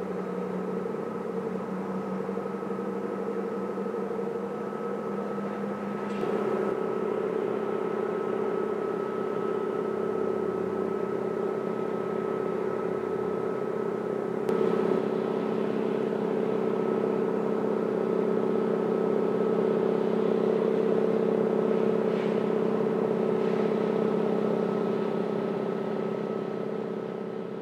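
Diesel engine of a pilot launch running at speed, a steady hum with a constant high whine. The note shifts and gets louder about six seconds in, peaks later on and fades near the end.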